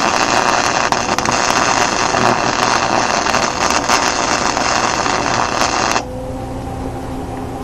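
Lincoln Handy MIG 110-volt welder arc crackling steadily as a bead is run, with the wire speed set too high (on 8 where it should be on 5). The arc cuts off about six seconds in, leaving a low steady hum.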